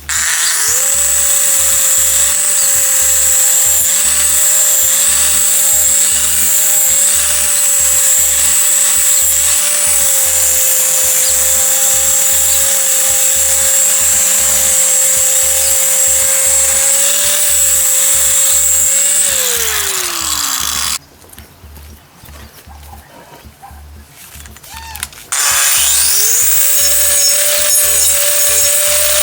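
Handheld electric power tool working wood, its motor running at a steady whine. About two-thirds through it winds down with a falling pitch and stops. A few seconds later it starts again, rising back to speed.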